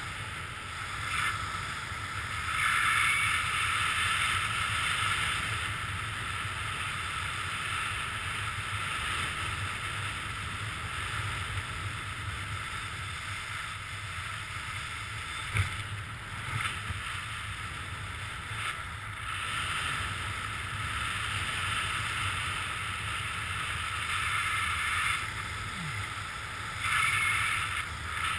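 Wind buffeting the camera's microphone during a skydive: a steady rushing hiss that swells and eases several times.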